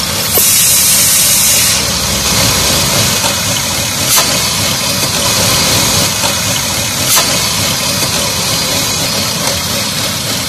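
Car engine idling roughly with its speed fluctuating, the oil filler cap off and air being sucked into the open filler neck: excessive crankcase vacuum, which the technician traces to the PCV (crankcase ventilation) system. A brief hiss comes about half a second in, and there are sharp clicks near four and seven seconds.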